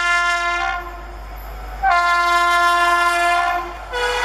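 Electric locomotive's air horn on an approaching Indian Railways passenger train, sounding in long, steady blasts: one cuts off under a second in, another runs from about two seconds to three and a half, and a fresh blast on a different note starts near the end.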